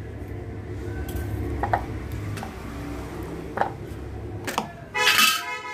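Kitchen vegetable chopper being worked on chunks of tomato, onion and green chilli. There is a low steady hum with a few light clicks for about four seconds, then a loud harsh whirr near the end.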